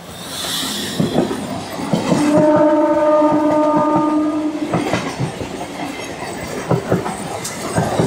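MMTS electric multiple unit commuter train passing close by, its wheels clattering over the rail joints. A steady train horn sounds for about two and a half seconds, starting about two seconds in.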